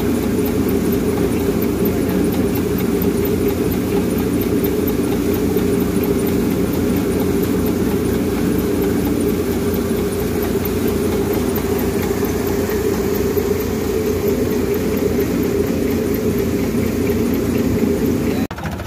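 Tractor-powered wheat thresher running steadily at working speed while threshing, its drive and threshing drum making a loud, even mechanical din with a low rhythmic pulsing. The sound cuts off abruptly near the end.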